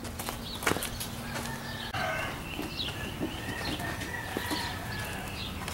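A few sharp clicks or steps, then from about two seconds in, several birds calling in short, wavering calls, fowl among them.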